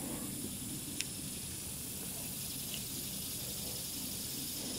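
Faint steady hiss of outdoor background noise at dusk, with one light click about a second in, as black powder substitute is poured from a flask into the revolver's chambers.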